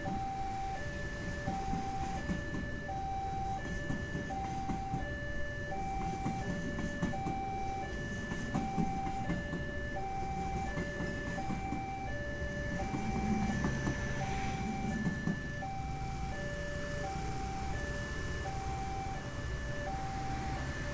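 Railway level-crossing warning alarm sounding a repeating electronic two-tone chime, a higher note then a lower one, over and over without a break. Under it is the low rumble of a passenger train rolling past and of motorcycle engines idling at the barrier.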